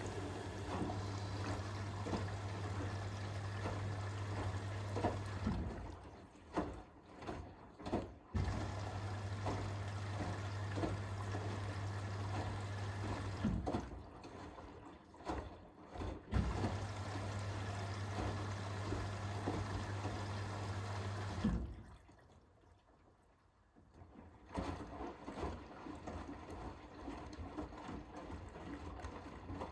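Hoover H-WASH 500 washing machine tumbling its load in water: a steady motor hum with sloshing and splashing as the drum turns. The drum stops and starts again after short pauses about 6 and 14 seconds in, then goes nearly quiet for two seconds before water noise resumes without the hum.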